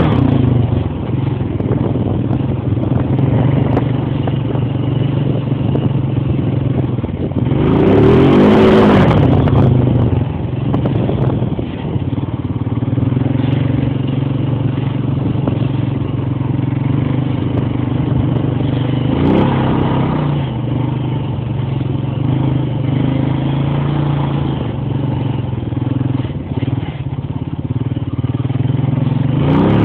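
Honda Rancher ATV's single-cylinder four-stroke engine running steadily as it is ridden along a muddy trail. The engine revs up and back down three times: about eight seconds in, near the middle and at the very end. Light clatter from the machine comes along with it.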